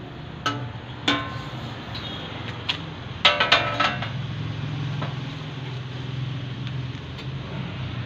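Sheet-metal door panel knocking and clinking against the sidecar's steel frame as it is held in place, a few sharp metallic taps with short ringing, the loudest cluster near the middle. From about halfway a low steady engine hum runs underneath.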